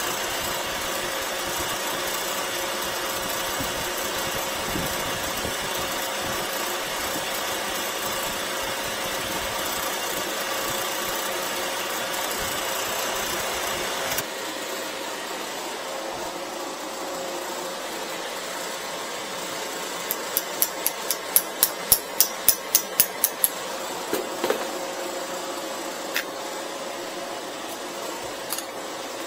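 Refrigerant recovery machine running steadily, pulling refrigerant out of the refrigerator's sealed system. About halfway through its hissing upper edge drops away abruptly while the motor keeps running. Later there is a quick run of about fifteen sharp clicks, then a few single clicks.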